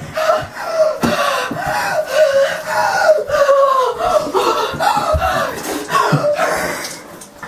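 A person crying out wordlessly while being sprayed with a handheld shower head, over the hiss of running shower water. The cries fade near the end.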